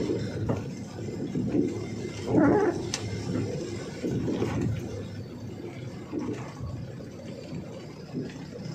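Truck cab noise on the move, with a low rumble and short yelping sounds recurring every second or two. The loudest comes about two and a half seconds in.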